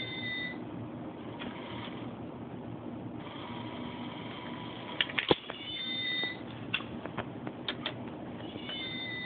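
Battery-powered kitten coin bank working: its small motor runs for a couple of seconds, then a quick clatter of clicks as the toy cat's paw snatches the coin into the box. Short high-pitched meow sounds, high-pitched tones with a slight fall, come at the start, right after the clicks and again near the end.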